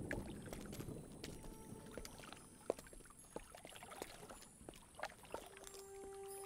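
Faint outdoor background with scattered light taps and clicks. About five seconds in, a steady low musical note fades in and holds.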